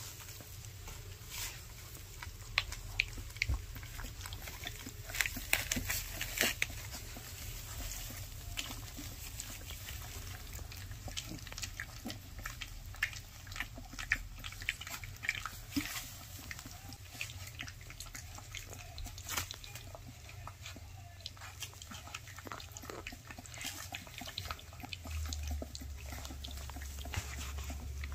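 Three-week-old Basset Hound puppies lapping and slurping soft puppy mush from a stainless steel saucer feeder: an uneven run of smacking clicks from several mouths at once.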